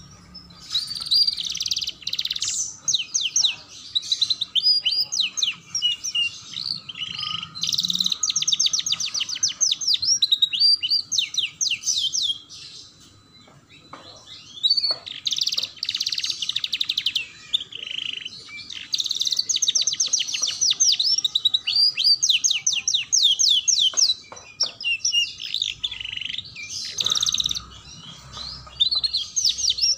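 Domestic canary singing a long song of rapid rolling trills and chirps, phrase after phrase with short breaks and one longer pause a little before the middle.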